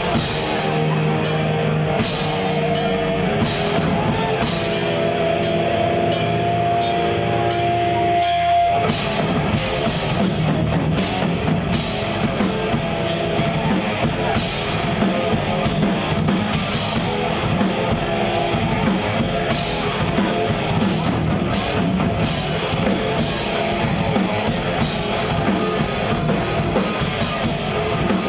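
A live death metal band playing: held, ringing chords over cymbal hits for about the first nine seconds, then the whole band suddenly breaks into dense, heavy riffing with driving drums.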